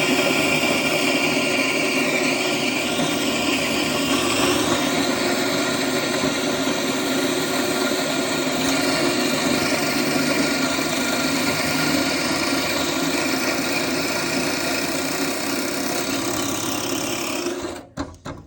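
Bunn LPG-2E commercial coffee grinder running, grinding coffee with a loud, steady whir. Near the end it cuts off suddenly by itself, shut off by its grind timer.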